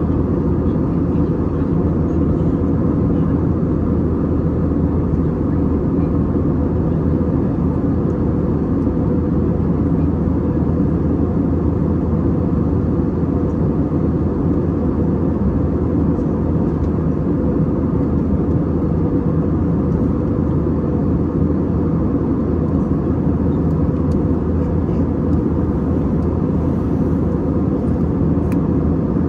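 Cabin noise of an Airbus A320neo at cruise, heard from a window seat over the wing. It is a steady, low, even rush of airflow and its Pratt & Whitney PW1100G geared turbofan engines, with a faint constant hum on top.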